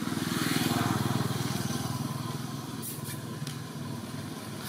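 Motorcycle engine running nearby, swelling over the first second and then slowly fading. A few short clicks sound about three seconds in.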